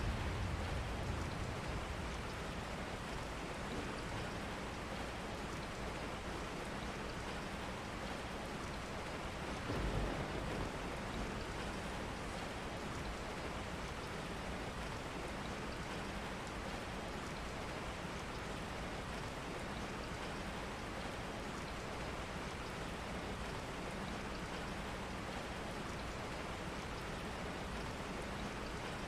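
Steady rain falling, with a brief low rumble about ten seconds in.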